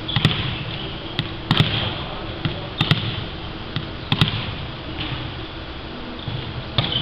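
A volleyball being struck and bouncing on a wooden sports-hall floor: several sharp smacks spread irregularly, some in quick pairs, over the steady background noise of a large indoor hall.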